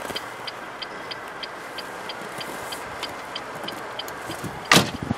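A rapid electronic tick from the car's dashboard, about three a second, then the driver's door of a 2006 Renault Megane shut with one loud slam near the end.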